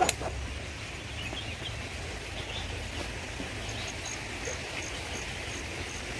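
Rural outdoor ambience: a steady low rumble with faint scattered bird chirps. In the second half a thin high pip repeats a few times a second.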